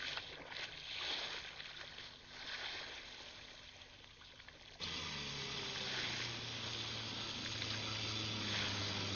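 Water washing and splashing for about five seconds, then a sudden cut to a small motorboat's engine droning steadily over the sound of the water.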